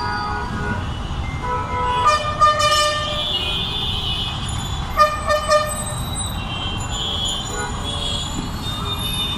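Steady road-traffic rumble with vehicle horns honking: a horn blast of about a second around two seconds in, then a few short toots around five seconds in.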